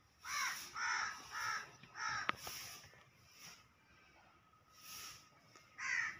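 Crow cawing: four short harsh caws in quick succession, then one more near the end, with a single sharp click a little after the fourth caw.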